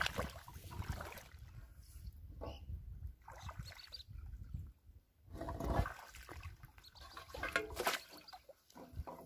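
Shallow water splashing and sloshing in irregular bursts as a metal basin is dipped and pushed through a weedy pond and bare feet wade in the water, loudest near the end as the basin fills.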